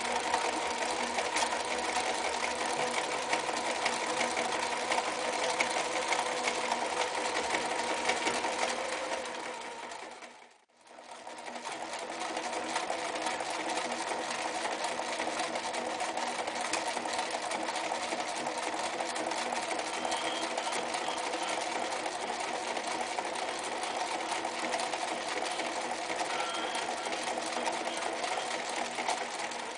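Frister + Rossmann 1080 sewing machine running steadily, stitching through three and then four layers of leather. The sound fades to a brief gap about ten seconds in, then the machine runs steadily again.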